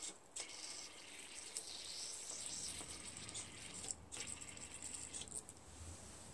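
Aerosol spray hissing through a red straw nozzle into a small-engine carburetor to clean it out. The spray comes in long bursts, with short breaks about a quarter second and four seconds in, and stops about five and a half seconds in.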